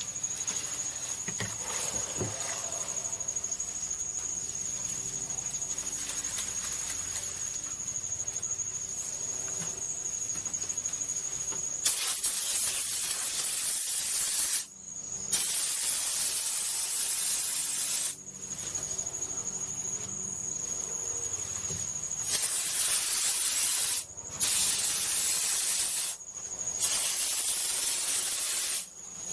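Spray foam insulation gun hissing in five bursts of about two to three seconds each, starting about twelve seconds in, as the trigger is squeezed and released. Before the first burst and between some bursts a thin, steady high whistle is heard.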